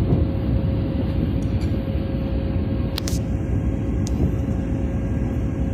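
Steady low machine rumble with a constant hum over it, and a sharp click about three seconds in followed by a fainter one a second later.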